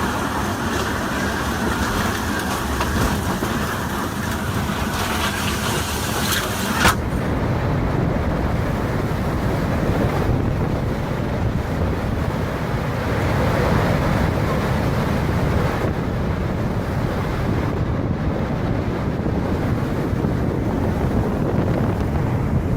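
Strong storm wind buffeting the microphone, a continuous noisy rush. About seven seconds in it changes abruptly from a bright hiss to a lower, rumbling gusting.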